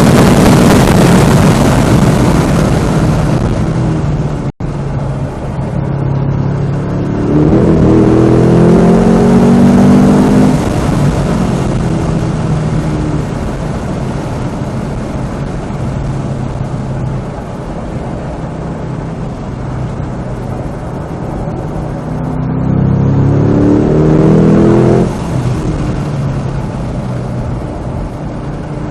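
Cadillac CT5-V Blackwing's supercharged 6.2-litre V8 under hard track driving, rising in pitch as it accelerates twice and dropping off suddenly when the throttle is lifted, with lower, steadier running in between.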